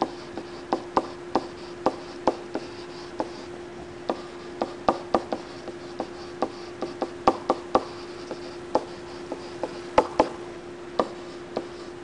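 Pen tip tapping and scratching on a writing surface as words are handwritten: sharp irregular clicks about twice a second, the loudest about ten seconds in, over a steady low hum.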